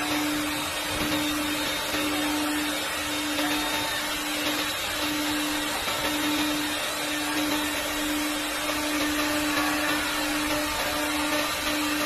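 CNC door lock-hole and hinge machine running: a steady hiss with a strong hum that drops out briefly about once a second.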